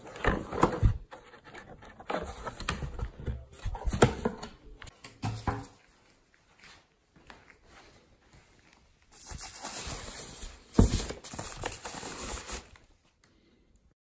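Plastic speaker bags and packaging being handled: rustling and crinkling, with several sharp knocks from the box and foam inserts. The sound stops for about three seconds in the middle, then comes back with more crinkling and one loud knock.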